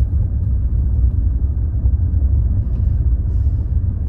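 Car driving slowly along a rough road, heard from inside the cabin: a steady low rumble of engine and tyres.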